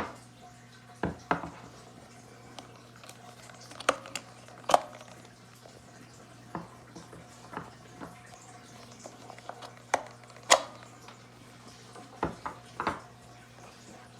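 C batteries being handled, with about a dozen separate clicks and clacks spread out, the loudest two near the middle, over a steady low hum.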